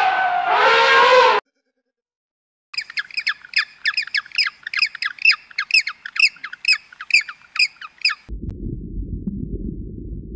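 A loud, drawn-out call with rich overtones that cuts off abruptly about a second and a half in; after a short silence comes a rapid series of squawking bird calls, about three a second, lasting some five seconds, followed by a low rumbling noise near the end.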